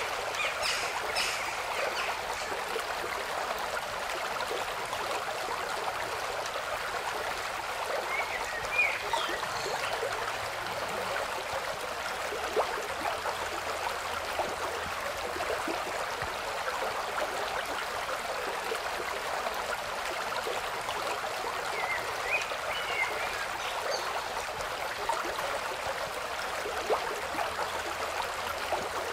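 Steady rushing noise of running water, with a few faint short high chirps.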